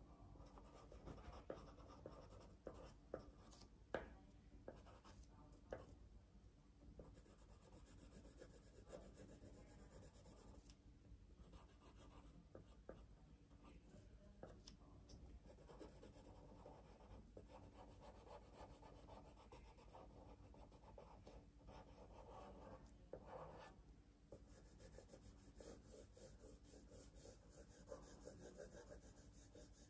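Faint scratching of a drawing tool on paper: steady shading strokes, with a few sharper ticks in the first several seconds.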